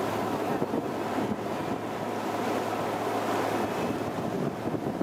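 Wind blowing across the microphone on the deck of a river cruise boat under way, over the rush of water along the hull and a steady low engine hum.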